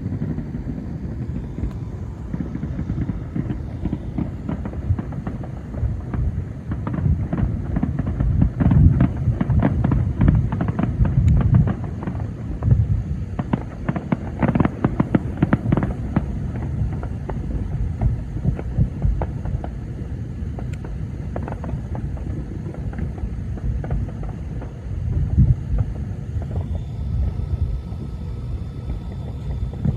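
Thousands of distant fireworks, legal and illegal, merging into a continuous low rolling rumble, with many sharper cracks and pops on top that come thickest in the middle.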